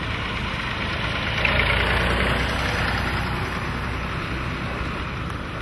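Farm tractor engines running as tractors drive past one after another, louder for a second or two in the middle as one passes close.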